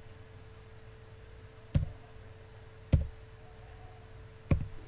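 Three sharp clicks, each with a dull knock to it, a little over a second apart, over a faint steady hum.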